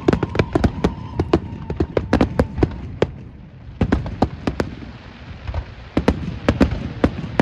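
Fireworks going off in a rapid, irregular series of sharp bangs and pops, thinning out briefly about halfway through, then picking up again.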